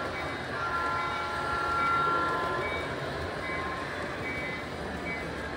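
Model train running on the layout's track: a steady mechanical hum with a thin whining tone that holds for a couple of seconds.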